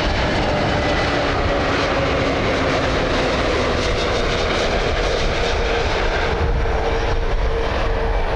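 Narrow-body jet airliner's engines running loud and steady, with a few faint whining tones that slowly fall in pitch.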